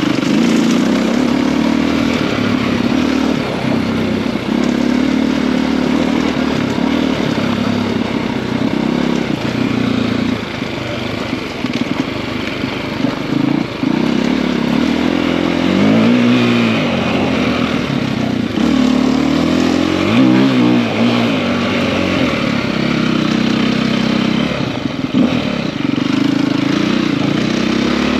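KTM EXC-F enduro bike with a 280 big bore kit, its single-cylinder four-stroke engine running under way, the revs rising and falling with the throttle and gear changes, with two clear rev rises and drops about 16 and 20 seconds in.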